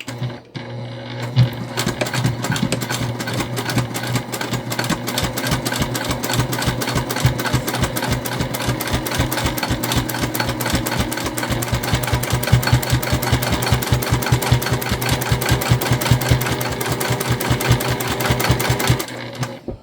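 Electric sewing machine running a topstitch at a 1/8-inch seam allowance, its needle strokes in a fast, even rhythm over a steady motor hum. It stops near the end.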